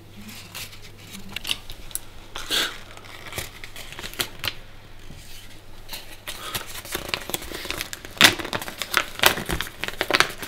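Crumpled paper being pulled out by hand and smoothed open, crinkling irregularly, most densely and loudly from about seven seconds in.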